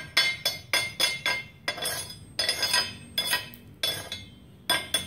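Chipping hammer knocking slag off a freshly laid stick-weld bead on steel plate: sharp metal-on-metal strikes with a ringing clink, about three a second, pausing for about a second near the end before starting again.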